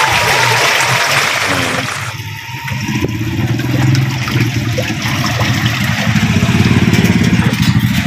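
Washing machine running on test with its gearbox shafts welded together so the motor drives the tub directly; it spins fast and strong. A broad splashing hiss drops away about two seconds in, leaving a rapid, even churning from the motor and drive that grows louder toward the end.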